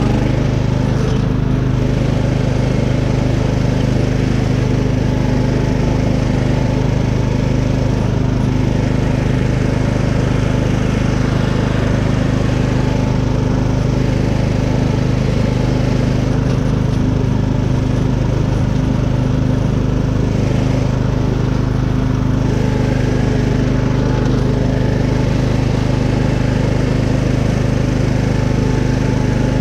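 Riding lawn mower's engine running steadily at one even speed while the mower is driven.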